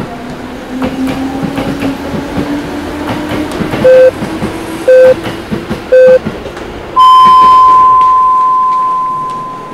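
Electric train passing, its running noise carrying a slowly rising whine, overlaid by the Japanese telephone time signal. Three short 440 Hz pips come a second apart about four seconds in, then a long, higher tone follows and fades out slowly.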